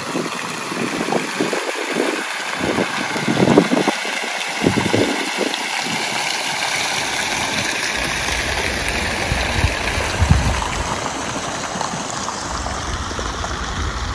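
Fountain jets splashing into a stone basin, a steady hiss of falling water, with irregular low rumbles in the first half and a steadier low rumble later on.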